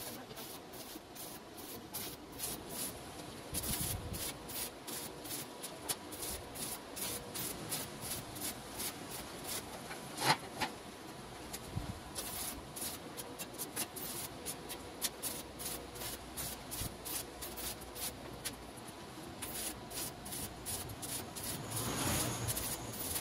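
Electric arc welding on steel square tubing: an irregular crackle and sputter from the arc, coming in runs with short pauses, with one louder crack about ten seconds in.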